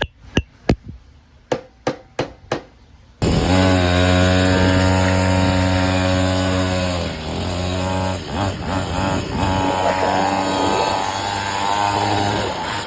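Several sharp clicks or knocks, then about three seconds in a small gasoline engine comes in abruptly and runs loud and steady, with a couple of brief drops in speed near the middle.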